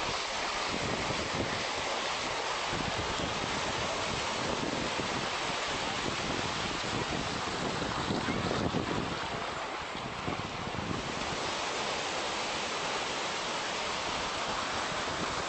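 Small waves breaking and washing up the shore in steady surf, with wind buffeting the microphone in low gusts.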